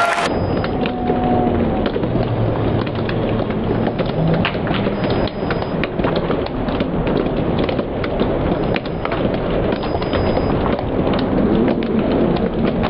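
Dull, steady rumble of a large echoing sports hall during a kendo bout, with scattered sharp clacks and knocks from bamboo shinai striking each other and feet stamping on the wooden floor.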